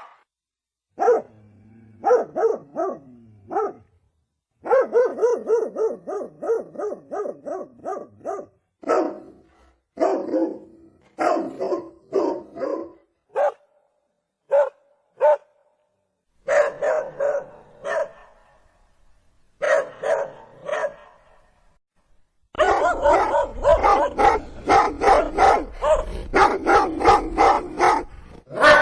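Dogs barking in a string of separate clips with dead silence between them: short runs of barks and yips, some single sharp barks, and near the end a long run of rapid barking.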